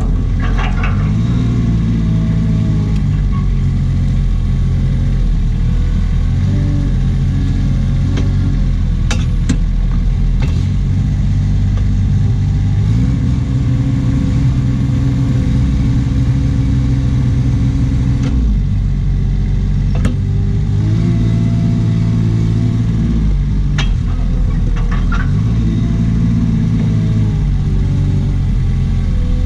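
Knikmops 100 Tele articulated mini loader's engine running under hydraulic load while its post hole auger drills into loose sand. The engine note steps up and down in pitch several times as the auger is worked, and is held highest for a few seconds in the middle, with a few short knocks.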